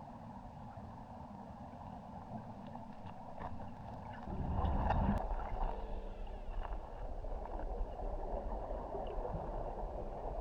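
Muffled underwater noise of a scuba diver on the way down, with a louder rush of bubbling about four seconds in that lasts about a second.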